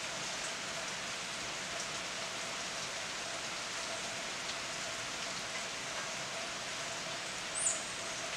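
Steady rain falling through foliage, a continuous even hiss with faint scattered drip ticks. Near the end a single short, very high note stands out briefly above the rain.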